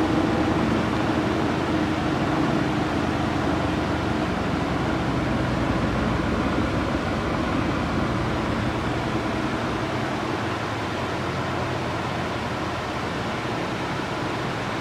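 Walton washing machine near the end of its spin cycle: the drum spinning with a steady mechanical hum and whir that slowly gets a little quieter. The clothes inside are already spun about 80% dry.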